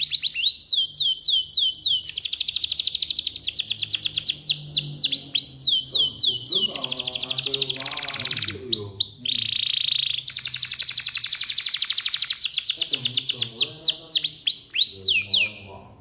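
Domestic canary singing in long rolling trills of rapid, downward-sweeping high notes. The phrases change every few seconds, with one short held note in the middle, and the song stops just before the end.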